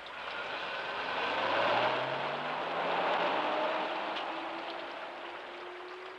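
Bus engine pulling away, its pitch rising slowly as it gains speed, then fading off into the distance over steady heavy rain.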